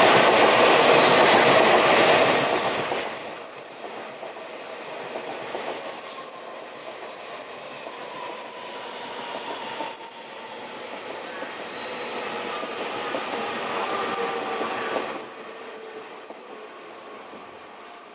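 Taiwan Railways train passing close by: a loud rush of the cars for the first few seconds that drops off sharply, then a quieter run of the train with faint wheel squeal.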